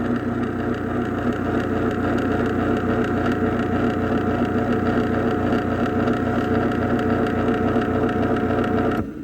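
Craftsman chain-drive garage door opener running a closing cycle: a steady motor hum with the chain drive, stopping abruptly near the end.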